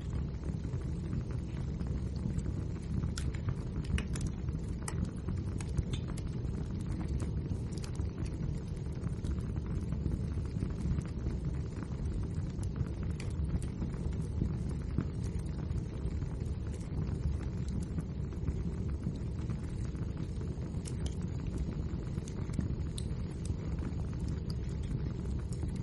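Wood fire burning in a fireplace: a steady low rush of flame with scattered sharp crackles and pops from the burning logs.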